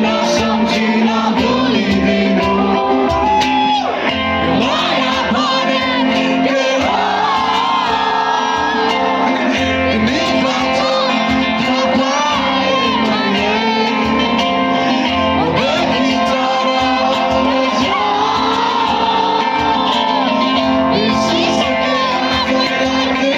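Live band performance: a singer's voice over guitar and a steady beat, played loud and without a break.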